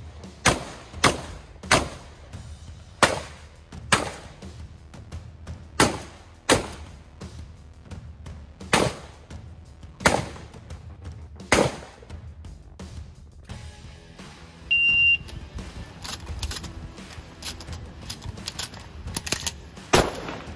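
Shotgun shots fired in rapid strings on an IPSC shotgun stage, about ten sharp reports in the first twelve seconds. About fifteen seconds in, a shot timer gives a single high start beep, and more shots follow, loudest near the end. Background music runs under the shooting.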